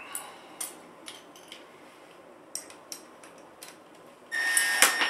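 Scattered small metal clicks of hardware being handled. About four seconds in, a cordless drill starts and runs with a steady high whine as it unscrews an old anchor from a metal mounting bracket.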